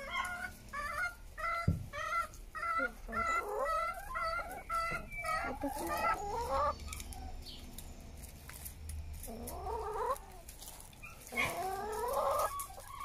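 Domestic hen clucking: a steady run of short clucks about twice a second, followed by a few longer, drawn-out calls.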